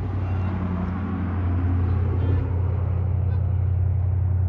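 An engine running steadily with a low, even hum and a rushing noise over it, growing a little louder about two seconds in.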